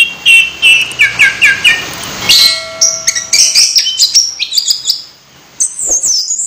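Caged songbird singing: a run of evenly repeated short chirps, then a faster, varied stream of sweeping high whistled notes.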